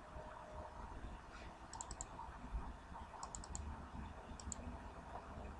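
Faint computer mouse clicks in three quick clusters of two to four clicks each, about two, three and four and a half seconds in.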